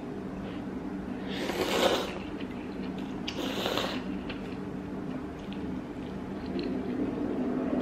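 Noodles slurped from a bowl of soup: two slurps of under a second each, about two seconds apart, with a few faint clicks of chopsticks.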